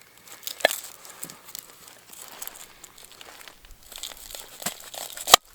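A heavy Ka-Bar BK2 knife cutting through an onion: crisp crackling of the onion layers with scattered knocks of the blade, one sharp loud knock near the end.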